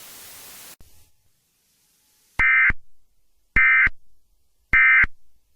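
A steady static hiss that cuts off under a second in, then three short, loud bursts of warbling data tones about a second apart, each trailing off briefly: the Emergency Alert System end-of-message signal.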